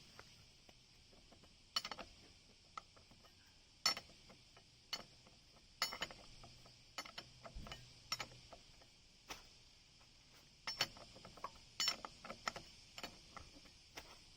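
Scattered, irregular clicks and clinks of hand tools and metal parts being handled, over a steady high hiss.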